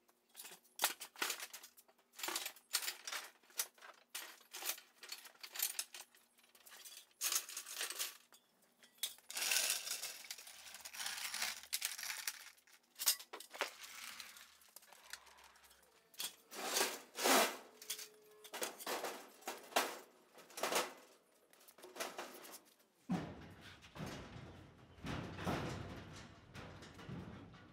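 Metal parts and tools clinking and clattering as they are shifted about in plastic milk crates and on a hand truck, a rapid run of sharp clinks and knocks. Near the end it gives way to a denser, lower noise.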